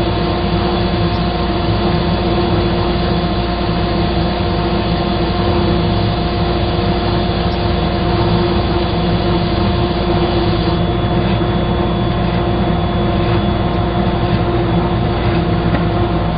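Woodworking power tool running steadily while shaping a canary wood blank, a constant motor hum with a steady whine. About eleven seconds in the upper range thins and faint scratchy ticks come in.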